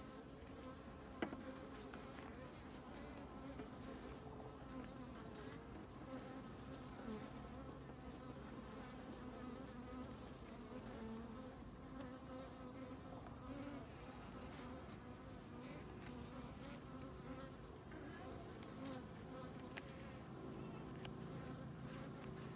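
Honeybees buzzing over an opened hive's frames and comb, a steady wavering hum. A single sharp click about a second in.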